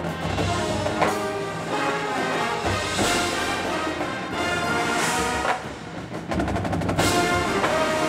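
High school marching band playing: sustained brass chords over percussion, with accented hits every couple of seconds. A little past the middle the sound drops briefly to a run of rapid percussion strokes before the full band comes back in.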